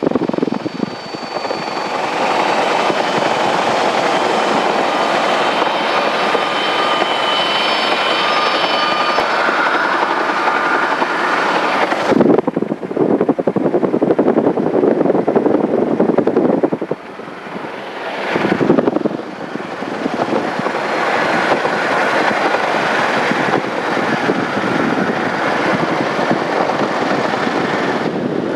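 Aircraft engine and propeller noise heard from inside a light plane's cabin, loud and steady, with high whining tones over it for the first dozen seconds. The sound breaks off and changes abruptly twice, about twelve and about eighteen seconds in.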